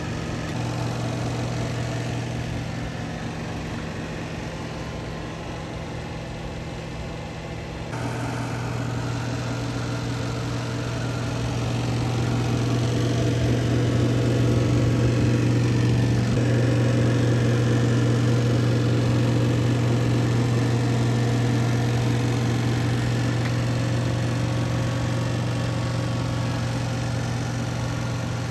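A steady low mechanical hum with a few fixed overtones. It steps up in level about eight seconds in and changes again around sixteen seconds in.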